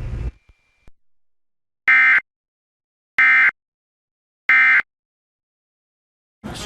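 Emergency Alert System end-of-message (EOM) signal: three short, buzzy digital data bursts about 1.3 seconds apart, the SAME code that marks the close of the alert.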